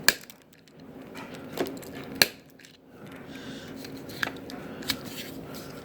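Wire cutters snipping across the bundled Cat5 conductors: two sharp snips about two seconds apart, then a few fainter clicks.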